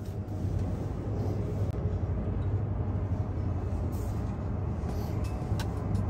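Steady low rumble and hum heard inside a Doppelmayr cable car gondola running along its haul rope as it nears a support tower, strengthening slightly about half a second in.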